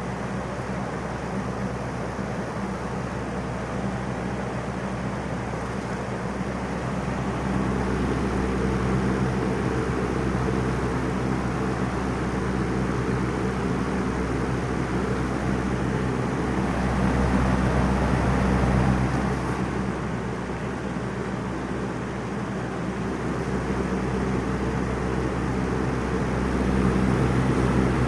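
Vintage Wizard box fan running on high speed: a steady electric motor hum under the rush of air from the blades, swelling and easing a little in loudness.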